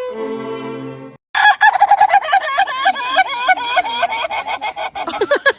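String music that cuts off about a second in, then a dense run of rapid, overlapping bird calls repeating several times a second.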